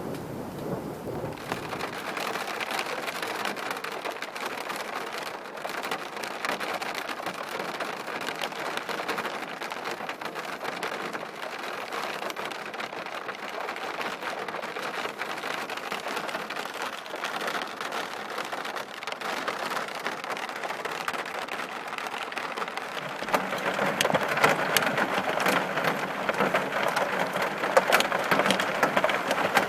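Steady rushing, crackling water noise that grows louder about three-quarters of the way through.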